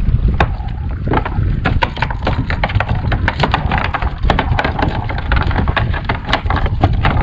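Wind buffeting the microphone over choppy sea, with water slapping against a kayak hull in many irregular short splashes and knocks.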